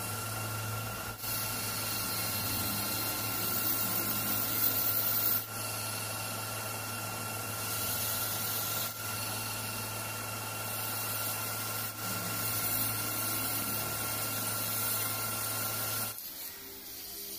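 Metal lathe running while its carbide tool faces the crown of an aluminium piston blank: a steady motor hum with a hissing cut, with a few brief dips as the cut pauses. About a second before the end the hum cuts off and the sound drops away.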